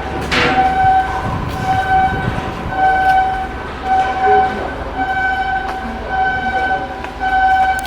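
A horn sounding in repeated short blasts, about one a second, each a single steady tone. Scattered sharp cracks and a low rumble run underneath.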